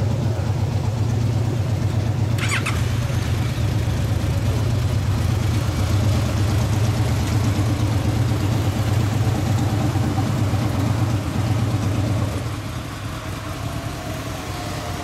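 Honda VFR800 V4 engine running steadily at idle through a WYVERN aftermarket muffler, a low, even exhaust note. A brief high squeak comes about two and a half seconds in, and the engine sound drops somewhat about twelve seconds in.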